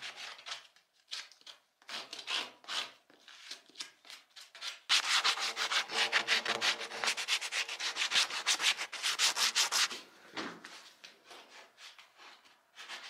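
A sawn timber beam being sanded by hand, with quick back-and-forth scraping strokes. The strokes come in short runs and are loudest and fastest, about four a second, from about five seconds to ten seconds in.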